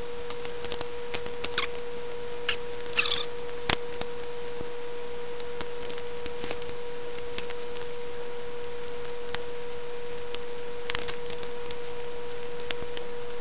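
Scattered small clicks and short scrapes of hands working screws on and handling a DVD player's sheet-metal case, over a steady hiss and a steady mid-pitched tone.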